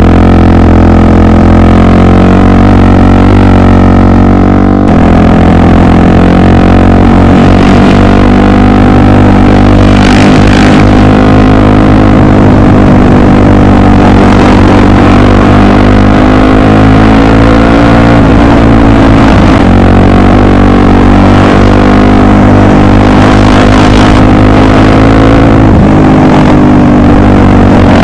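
Honda XR 250 Tornado's single-cylinder four-stroke engine running loud and steady while riding. Its pitch shifts suddenly about five seconds in, and dips and recovers briefly near the two-thirds mark.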